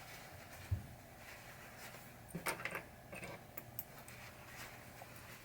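Light clicks and taps of small metal pinball parts being handled and set down: a low thump about three-quarters of a second in, a short cluster of clicks around two and a half seconds, and a few scattered ticks after, over a faint steady hum.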